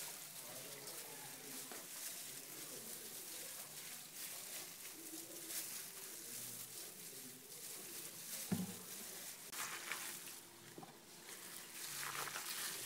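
A gloved hand mixing chopped spinach, potato and onion with gram flour and water in a glass bowl: faint wet squishing and crackly rustling of the plastic glove, with one soft knock partway through.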